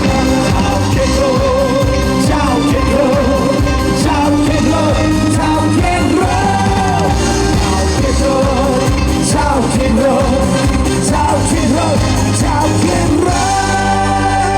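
Pop music with a singer's voice carrying a wavering melody over bass and drums.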